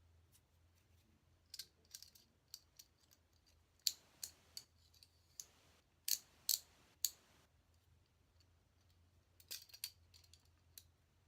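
Steel handcuffs clicking and clinking in scattered short bursts as they are pushed and worked into a tight handcuff case, the loudest clicks about six to seven seconds in.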